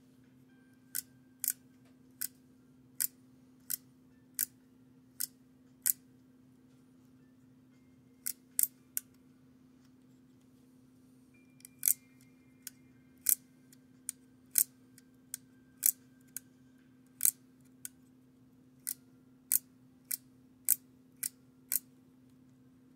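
Sharp mechanical clicks from a 1941 Argus AA camera's shutter mechanism being worked over and over, about one to two clicks a second, in runs broken by short pauses.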